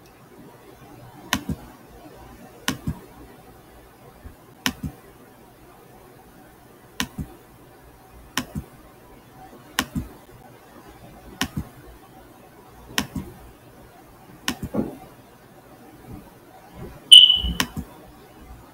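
Computer mouse button clicking, often as quick double clicks, every second or two over a faint steady hum. Near the end there is a louder knock with a brief high beep.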